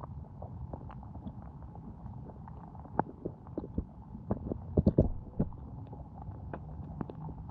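Muffled underwater rumble of creek water heard inside a GoPro's waterproof housing, with scattered clicks and a quick run of sharp knocks about five seconds in as sunfish bump and peck at the camera.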